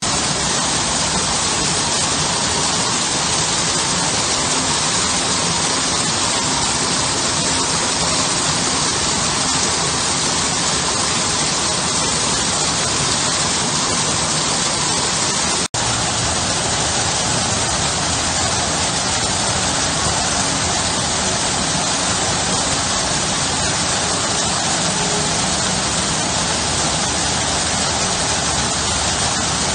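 Small garden waterfall: water pouring over stone ledges into a shallow pool, making a steady, even hiss. About halfway through, the sound cuts out for a split second.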